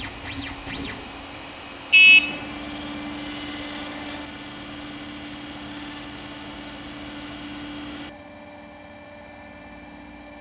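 3D printer playing a G-code song: its stepper motors whine in short rising and falling sweeps, and its buzzer gives one loud beep about two seconds in. A steady hum follows and drops quieter about eight seconds in.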